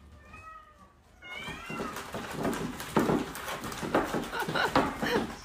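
A cat gives a couple of short meows in the first two seconds, then scratching and scuffing as it claws at a woven cat bed and shoves it across a wooden floor.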